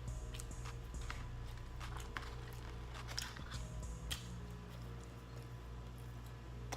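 Close-up chewing and biting of fast food, a burger and fries, with irregular wet clicks and smacks of the mouth over a steady low hum.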